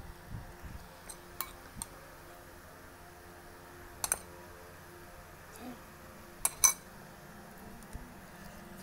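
A handful of sharp clinks against a glass baking dish as seafood is handled and peeled by hand. The loudest is a quick pair about two-thirds of the way through.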